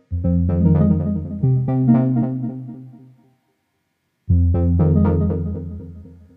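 Calm ambient electronic music: synthesizer and keyboard chords over a deep bass, in two phrases that each start suddenly and fade away, with about a second of silence between them.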